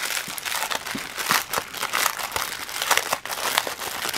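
Clear plastic bags of diamond-painting drills crinkling as hands sort through a bundle of them: a dense run of irregular crackles and rustles.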